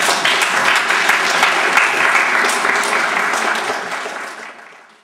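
Audience applauding, dense and steady, then dying away over the last second and a half.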